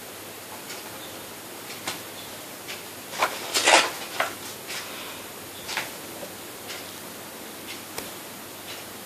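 Paper pages of a picture book being turned and handled: scattered light rustles and taps, the loudest cluster a little past three seconds in, over a steady background hiss.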